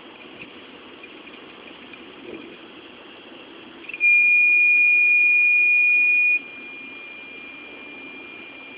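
Failing Seagate Momentus 5400.2 laptop hard drive making its abnormal noise: a faint steady high whine, then about four seconds in a loud, steady high-pitched beep-like tone for about two seconds before it falls back to the fainter whine. The drive fails SMART and later drops out of the BIOS.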